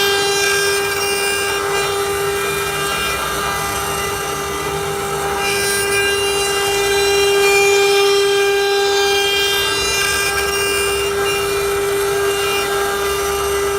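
CNC router spindle running at constant speed with a steady high whine, over the rasping noise of the bit cutting wood.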